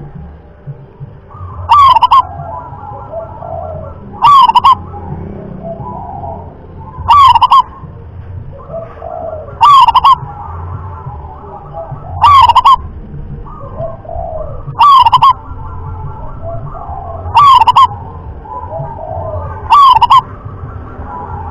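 Local zebra dove (perkutut) singing its cooing song: a short phrase of quick, warbling coo notes, repeated evenly about every two and a half seconds, eight times. Fainter background bird calls fill the gaps between phrases.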